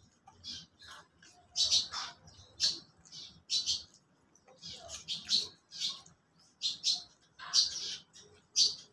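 Corgi chewing pieces of Fuji apple: a string of crisp, wet crunches at an uneven pace, about one or two a second.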